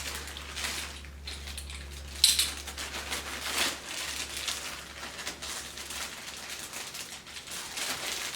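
Handling noise from loose tiller parts and their packaging being moved about: continuous rustling with scattered clicks and one sharp knock a little over two seconds in, over a steady low hum.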